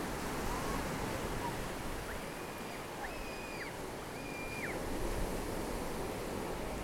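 Surf breaking and washing up the shore, a steady rushing hiss. Three short high whistled notes sound faintly near the middle.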